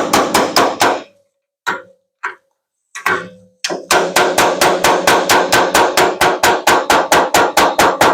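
Body hammer tapping on a steel pickup-bed panel to knock down a crease, each blow with a short metallic ring. A quick run of strikes opens, then a few single taps, then from a little past the middle a steady string of about four to five strikes a second.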